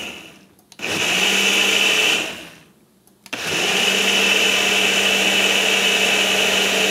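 Single-serve personal blender pulsed in short runs as it blends a fruit smoothie: a run winding down at the start, a second run about a second in, then a longer steady run from about three seconds in. The motor makes a loud, steady whine while it runs.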